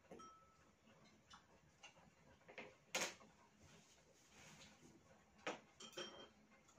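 Scattered light clicks and clinks of chopsticks and utensils against a stainless-steel hotpot and dishes, the loudest about three seconds in and a pair near the end. Two of the clinks leave a brief high metallic ring.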